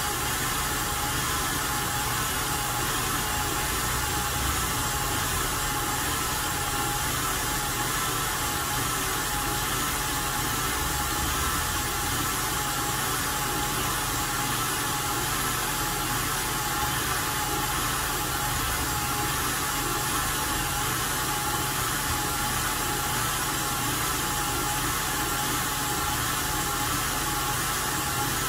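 KitchenAid Artisan stand mixer running steadily at speed, its motor whirring as the wire whisk whips a foamy mixture in the stainless-steel bowl.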